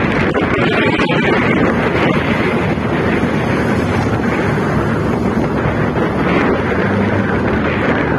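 Wind rushing over the microphone of a camera riding on a moving motorcycle: a loud, steady roar of noise with the engine's low hum underneath.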